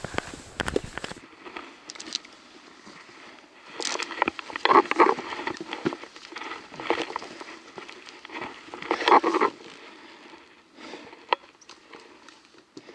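A hiker's footsteps and gear moving over rock: scattered sharp clicks and scuffs, with two louder noisy bursts about five and nine seconds in.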